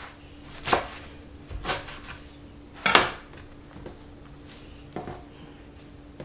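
A chef's knife chops cilantro on a plastic cutting board in a few separate strokes. About three seconds in, the knife is set down with a sharp metallic clink, the loudest sound. Only faint taps follow as the chopped herbs are handled on the board.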